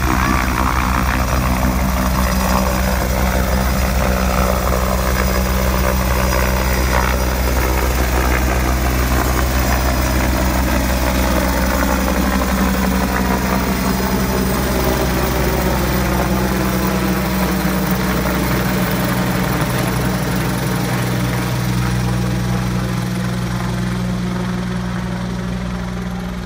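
Turbine helicopter taking off and climbing away overhead, its rotor and engine running steadily. The sound fades a little near the end as it flies off.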